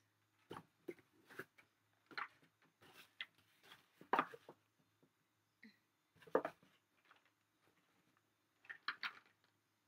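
Handling noise of unboxing: a clear plastic blister pack of paint bottles and the cardboard box's contents being picked up and moved, giving a series of short crinkles and clicks, loudest about four and six seconds in.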